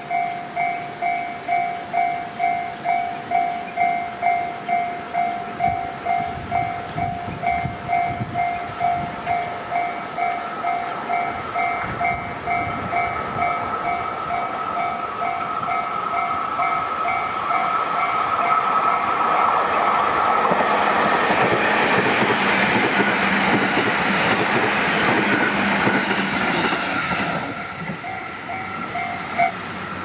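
Japanese level-crossing warning bell ringing in an even, repeating two-tone ding a little over twice a second. A JR Tokaido Line train runs through the crossing: its rail noise swells about 18 seconds in and fades near 27 seconds. The bell stops just before the end as the crossing clears.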